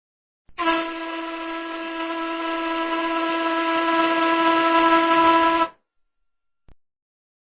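Steam whistle blowing one steady note with a breathy hiss, starting a little after half a second in, swelling slightly and cutting off sharply after about five seconds. A faint click follows about a second later.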